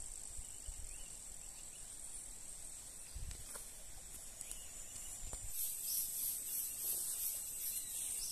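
Insects chirring in a steady high-pitched chorus that grows louder and pulses from about two-thirds of the way in, with a couple of dull low thumps in the middle.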